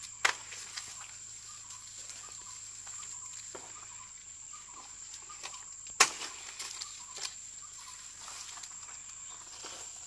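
Large broad leaves rustling and stalks snapping as leaves are picked off plants by hand. There is a sharp snap about a quarter second in and the loudest one about six seconds in, with lighter ticks and crackles between, over a steady high whine.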